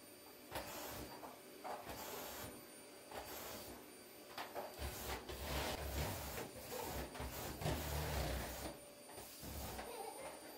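A run of irregular rubbing and scraping strokes with a low rumble in the middle, like hands working at a household task.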